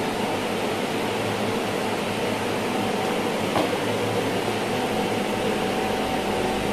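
A steady mechanical drone with a hiss over a low hum, and a faint click about three and a half seconds in.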